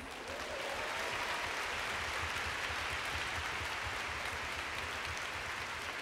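A large arena audience applauding steadily.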